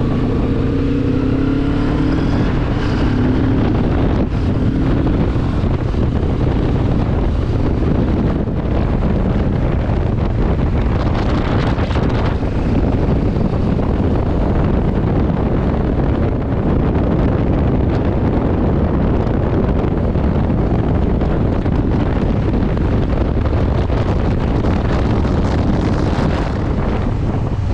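Benelli TRK 702's parallel-twin engine pulling away, its pitch rising through the first few seconds, then a steady rush of wind on the microphone at road speed over the engine's drone.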